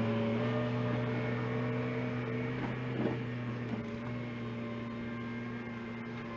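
Engine running steadily at a constant speed, slowly fading a little, with a couple of light knocks about halfway through.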